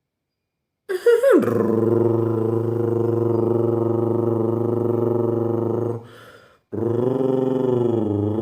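A person imitating a modified racing motorcycle's engine and exhaust with their voice: a quick rev blip about a second in, then a steady buzzing drone held for about five seconds, a short breath, and a second drone whose pitch dips and climbs again near the end.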